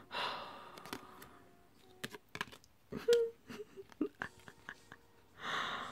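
A woman's breathy sighs and a few short, soft whimpering hums of admiration, with light clicks and taps of plastic-coated photo cards being shuffled in the hands.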